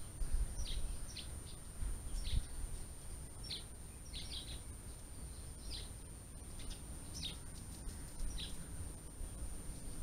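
Small songbird giving short high chirps, roughly one a second at an uneven pace, over a thin steady high whine and a low rumble.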